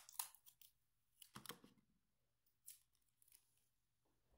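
Sticky tape being handled and pressed down: a few short, faint rustles and ticks, scattered about a second apart, with near silence between them.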